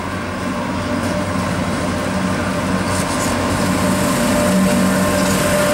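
A pair of British Rail Class 86 electric locomotives hauling a container train, running past at speed and growing louder as they approach. Their motors and equipment give a steady hum with a few higher held tones, and wheel-on-rail noise builds from about three seconds in.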